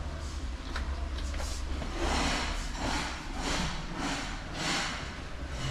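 Footsteps of a person walking, about two steps a second, over a steady low rumble.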